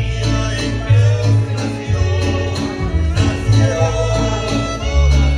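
Mariachi band playing: guitars strummed in a steady rhythm over deep, plucked bass notes from a guitarrón.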